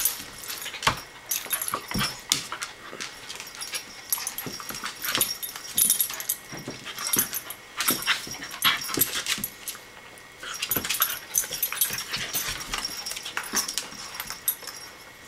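A corgi and a cairn terrier play-fighting on a vinyl floor: irregular clicks and scuffles of claws and bodies with short dog vocalizations mixed in, easing briefly about ten seconds in.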